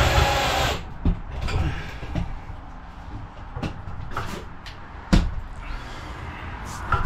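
Loud, steady vehicle noise stops abruptly under a second in. A quieter stretch follows, with a string of irregular knocks and clunks, the loudest about five seconds in.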